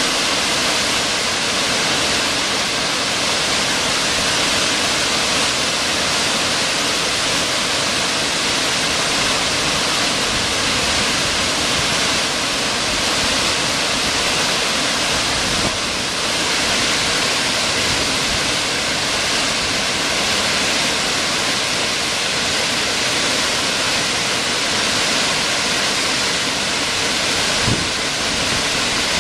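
Waterfall pouring over a wide rock ledge into churning white water: a steady, even rush of falling water.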